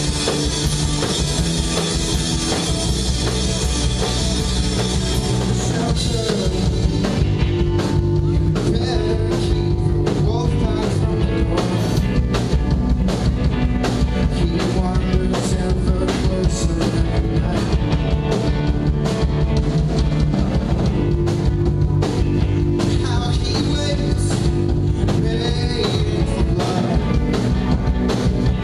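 Live rock band playing loud and steady on drum kit, electric guitar and bass. Cymbals wash heavily for the first few seconds, then a steady drum beat drives on, with singing coming in near the end.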